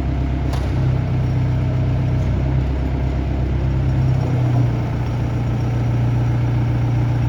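Diesel engine of a 2016 IHI 65NS midi excavator idling with a steady low hum; the deepest rumble fades about halfway through while the hum carries on evenly.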